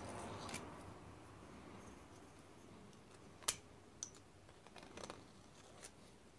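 Faint scraping of a hand deburring tool on the edge of a drilled hole in an aluminium plate, then a few light metal clicks and ticks, the sharpest about three and a half seconds in.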